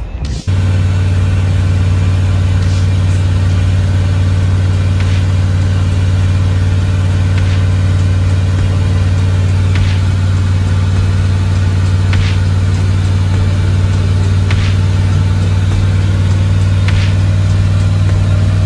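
Cab noise inside a 1977 Airstream Argosy motorhome at steady cruising speed: an even engine drone under road noise, with a faint tick about every two and a half seconds.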